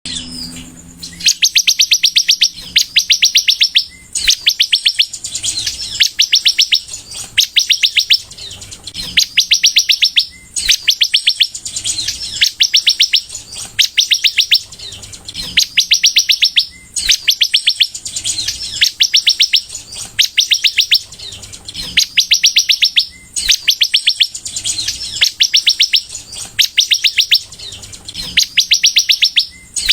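Sunbird singing in full song: loud phrases of very rapid high trilling notes, each about a second long, repeated every couple of seconds and often delivered two in quick succession.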